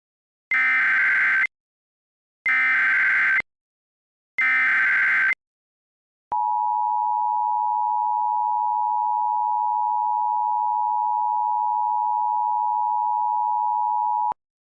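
Emergency Alert System alert opening. First come three buzzy one-second bursts of SAME header data tones, about a second apart. Then comes the two-tone attention signal, a steady dual tone held for about eight seconds that cuts off suddenly.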